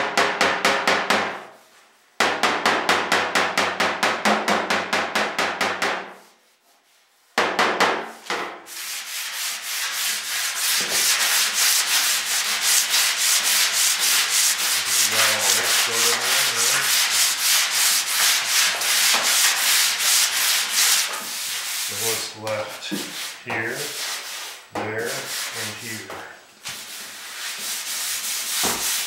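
A mallet tapping a dent out of a Citroen DS trunk lid in rapid, even strikes, with the panel ringing, broken by a short pause. After a quiet gap of about a second, from about seven seconds in, a sanding block is rubbed back and forth over the lid in quick strokes, block-sanding to show up the remaining low spots.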